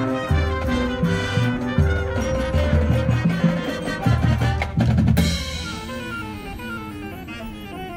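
High school marching band playing its competition show: the drum line's bass drums and snares hit under held wind chords. About five seconds in the drums stop and a softer passage of falling notes follows.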